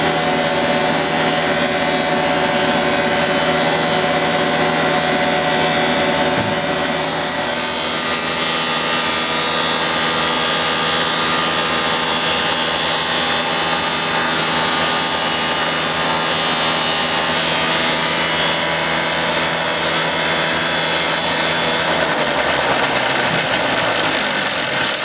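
CONTEC Verticalis wall planer milling off the surface of a wall: a loud, steady grinding machine noise with several held tones. The sound changes briefly about a third of the way in and again near the end.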